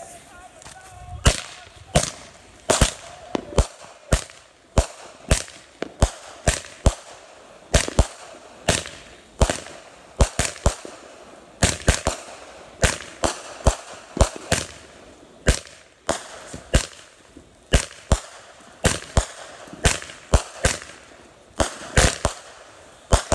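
A 200-gram consumer firework cake firing shot after shot, a sharp bang about every half to one second. The breaks are weak, and the uploader rates the cake below average for its size.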